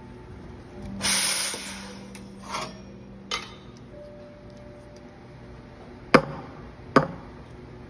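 Espresso machine steam wand purged in a short, loud hiss about a second in, with a fainter hiss and a click after it. Near the end, two sharp knocks less than a second apart: the steel milk pitcher tapped on the counter to settle the steamed milk's bubbles.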